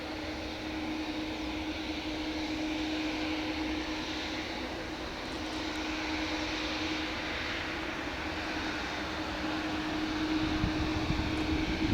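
Boeing 787-9 jet engines running with a steady tone over a broad rush of noise, slowly growing louder toward the end.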